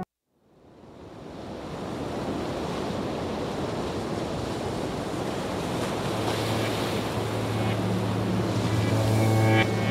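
The opening of an ambient music track. After a brief silence, a surf-like wash of noise fades in and swells. A low drone enters about six seconds in, and pitched notes come in near the end.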